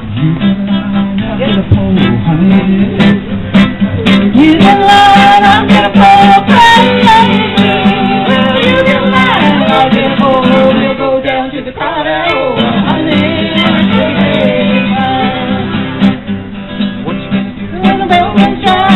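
Small acoustic folk ensemble playing live: a strummed acoustic guitar and a bowed violin, with a lead singer at the microphone and other voices singing along.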